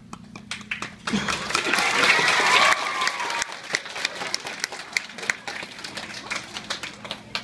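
An audience of schoolchildren clapping. The clapping swells sharply about a second in, mixed with a few voices, then thins out to scattered claps.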